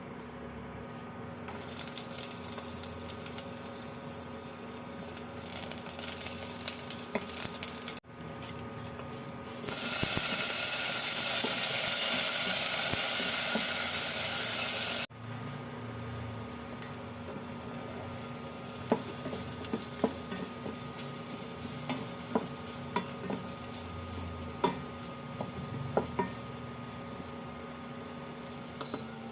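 Food sizzling as it fries in a pan. The sizzle turns loud for about five seconds in the middle, stops abruptly, then goes on more quietly with a few light clicks of a utensil against the pan.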